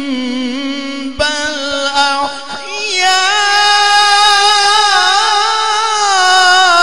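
A male qari reciting the Quran in tajweed style, amplified through a microphone. He sings long melismatic held notes: a lower note, a short break about a second in, then the voice climbs near the three-second mark to a higher note held with a slow waver.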